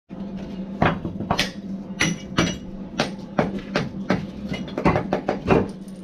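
Hand hammer striking old bricks: a dozen or so sharp knocks at an irregular pace of roughly two a second.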